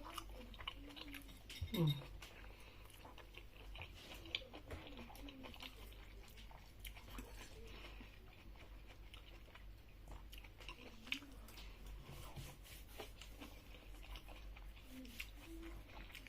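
Close, quiet chewing and eating sounds of a person eating a home-cooked meal: irregular soft clicks and smacks. About two seconds in there is a brief falling voice-like sound.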